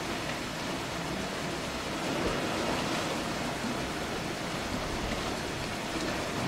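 Steady rushing wash of surf on a rocky shore, even and unbroken, with no bird calls.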